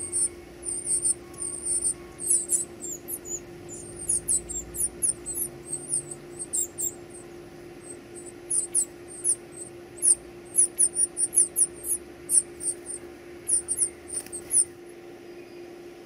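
Northern cardinal nestlings begging: rapid series of thin, very high-pitched squeaky peeps that break off for a moment about halfway and stop shortly before the end, over a faint steady low hum.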